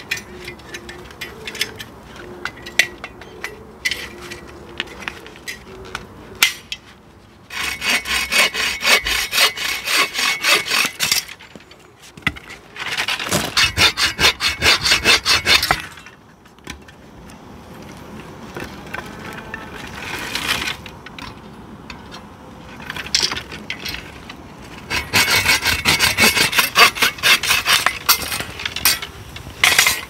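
Bow saw with a coarse-toothed blade cutting through a dry branch in three bouts of quick back-and-forth rasping strokes, with pauses and a few light knocks between them.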